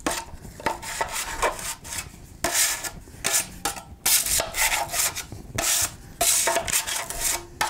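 Drywall knife scraping and stirring setting-type joint compound (hot mud) in a metal mud pan, mixing it up: a run of irregular scraping strokes, about one or two a second.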